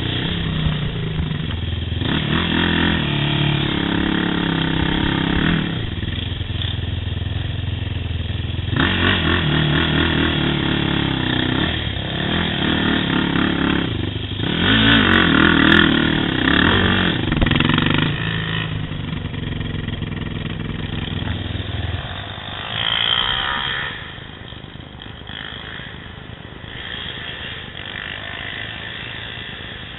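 Yamaha YFZ450 sport ATV's single-cylinder four-stroke engine running under way on a trail, the throttle opening and closing in several louder revving surges before it settles to a quieter, steady run near the end.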